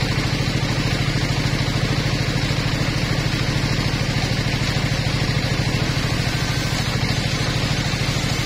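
The engine of a portable circular-saw sawmill running steadily with a fast, even pulse, with a steady hiss above it from the spinning saw blade.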